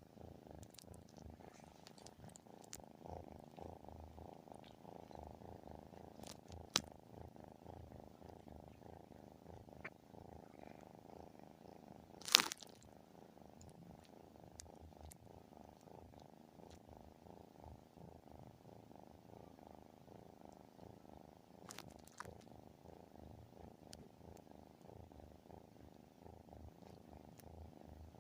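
Domestic cat purring steadily and continuously, a purr so heavy that the owner wonders whether it is a snore. A sharp click cuts in about twelve seconds in, with fainter ones around seven and twenty-two seconds.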